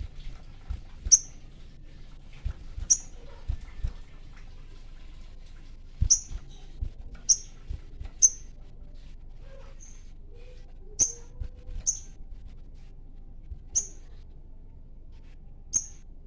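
A sogon bird giving short, sharp, high chirps, about ten of them at irregular intervals of one to two seconds: the call of a male in breeding condition challenging a rival.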